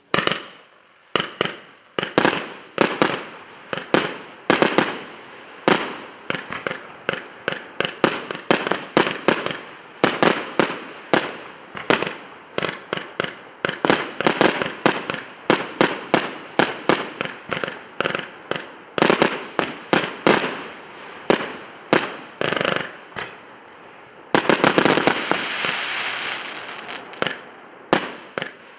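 Emperor Fireworks 'Maximum Impact' consumer firework going off in a rapid string of sharp bangs, a few a second. About 25 seconds in, a dense burst of crackling lasts a couple of seconds.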